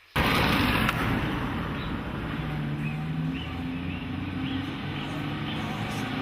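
City road traffic: a dense, steady wash of vehicle engines and road noise that cuts in abruptly at the start, with a run of short high chirps through the middle.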